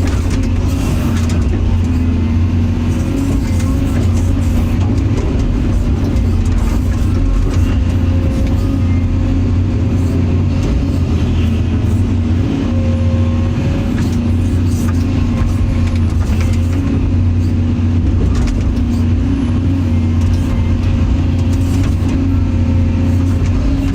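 Excavator's diesel engine running steadily under work, a deep even drone.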